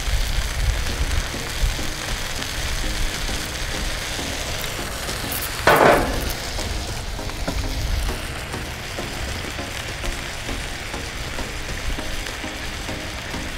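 Thick-sliced bacon sizzling gently on a Blackstone flat-top griddle over low heat (about 325°F), a little sizzle but not much. About six seconds in there is a brief, much louder noise.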